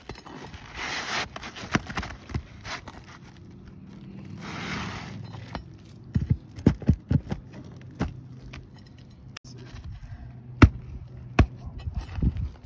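Steel flat pry bar worked under asphalt shingles, prying them up. It scrapes twice in the first half, then gives a run of sharp knocks and clacks.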